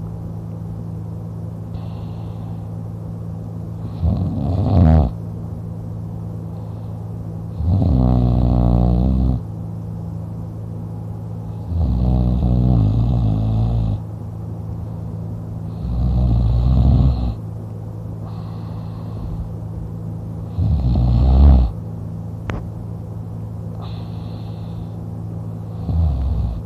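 A man snoring in his sleep while lying on his back with his mouth open. There are six loud snores, one every four seconds or so, over a steady low hum.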